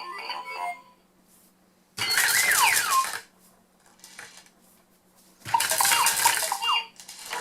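ELC Wobble & Glow rattle toy's electronic speaker: a tune ends just under a second in, then twice the toy plays a short funny sound effect, a noisy hiss with a falling whistle-like glide, each lasting about a second. The tune starts again at the very end.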